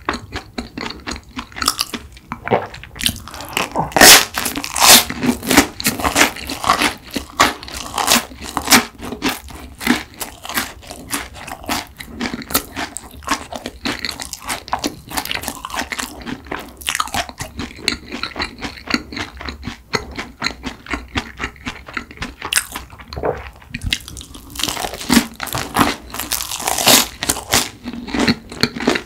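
Close-miked chewing of crusted bread: a dense run of crisp crunches and mouth sounds, with the loudest crunching about four seconds in and again near the end.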